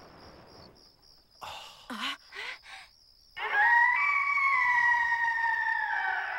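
A stag's call: a few short cries, then one long high drawn-out call that drops in pitch at the end.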